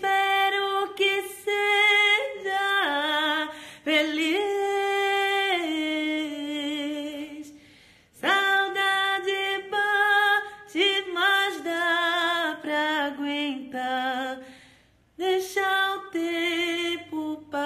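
Woman singing a slow romantic song unaccompanied, drawing out long held notes with vibrato, in three phrases with brief breaks about eight and fifteen seconds in.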